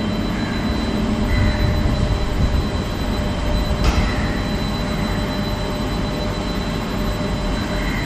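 Gondola cable car station machinery running: the haul rope turning over the sheaves and the bull wheel with a steady low mechanical rumble. A single sharp clack comes about four seconds in.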